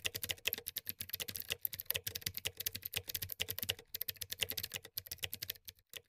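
Rapid, irregular clicking like keyboard typing, a continuous run of sharp key-like clicks that stops shortly before the end.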